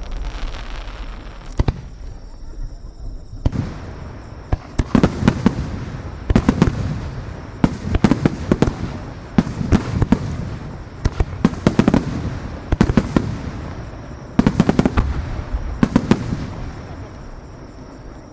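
Aerial fireworks in a grand-finale barrage: volleys of sharp shell bursts with crackling, coming every second or so, after a few scattered bangs and then dying away near the end.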